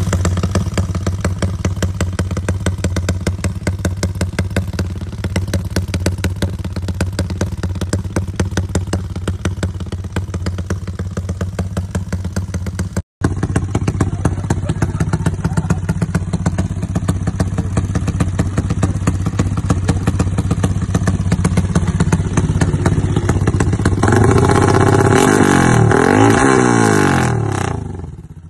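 Yamaha 150 cc single-cylinder four-stroke motorcycle engine with a non-standard aftermarket exhaust, idling with a deep, pulsing rumble from retarded 'timing kuda' ignition tuning. Near the end the throttle is blipped a few times, the revs rising and falling, before the sound drops away suddenly.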